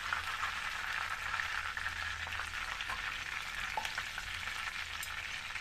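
Food sizzling steadily in hot oil in a kadai, with a few faint clicks.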